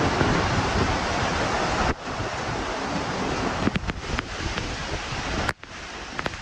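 Heavy rain and gusting wind, a dense rushing noise with wind buffeting the microphone. It drops abruptly about two seconds in and again near the end, with scattered sharp ticks in the second half.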